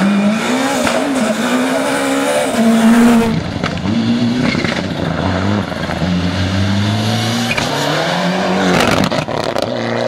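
Rally car engines driven flat out on a loose gravel stage, two different cars one after the other: the engine note climbs and drops again and again through the gears and lifts into corners, with a change of car and sound about three seconds in. Tyres scrabble on the loose surface.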